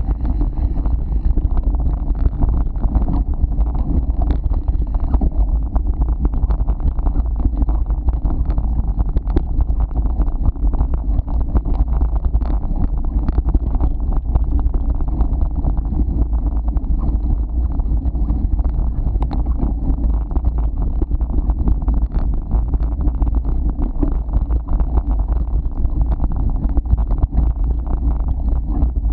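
Wind buffeting the microphone while a Canyon Exceed CF SLX mountain bike rolls fast over a dirt trail: a steady low rumble from the tyres and ground, with frequent small rattles and clicks from the bike over the rough surface.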